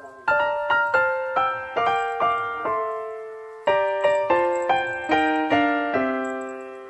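Background piano music: a light melody of single struck notes, about two a second, in two short phrases with a brief pause between them, the last note left to ring.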